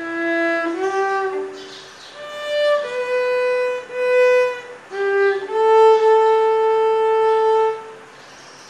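Violin playing a slow melody one note at a time: several short held notes with brief gaps, then one long note held for about two seconds, ending in a pause.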